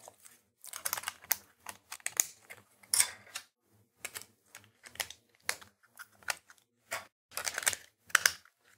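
Snap-together plastic parts of a red-and-white Raspberry Pi 3 case being fitted and pressed into place around the board by hand: a run of irregular light clicks and taps.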